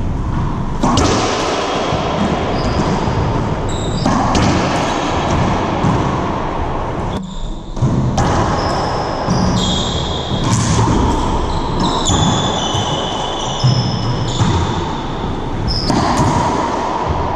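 Racquetball doubles rally: the ball knocking off racquets and the walls of the court, with many short, high sneaker squeaks on the hardwood floor.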